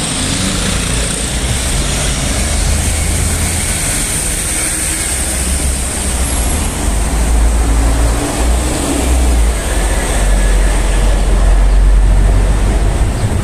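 City road traffic: cars and vans passing on a busy street, a continuous noise with a strong deep rumble.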